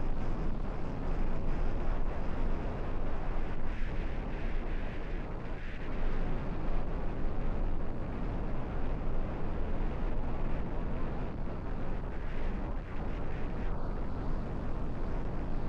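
Strong wind buffeting the microphone: a continuous low rumble that swells and dips with the gusts.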